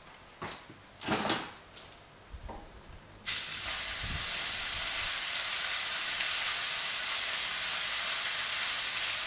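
Steak mince dropped into hot oil in a frying pan: after a few light knocks and rustles from the tray, a loud sizzle starts suddenly about three seconds in and carries on steadily as the meat begins to fry.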